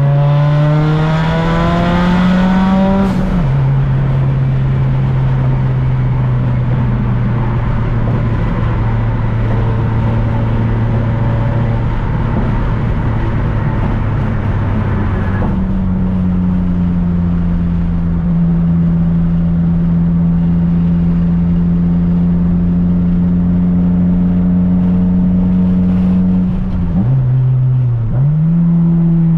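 Mitsubishi Lancer Evolution IX turbocharged four-cylinder engine climbing in revs, then dropping sharply in pitch about three seconds in. It then runs at a steady pitch, steps up to a higher steady pitch about halfway, and dips and climbs again briefly near the end.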